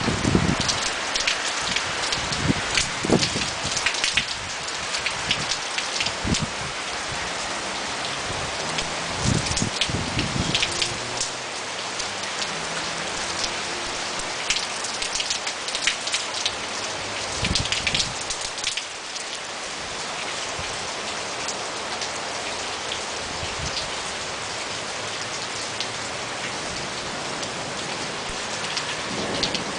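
Heavy rain falling steadily, with many close individual drop hits over the first twenty seconds or so, settling into a more even hiss after that.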